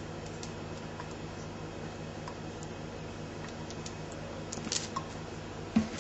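Small clicks and taps of a bottle being handled over a steady low background hum, with a cluster of clicks near the end and then a sharp knock as the soy sauce bottle is set down on the stone counter.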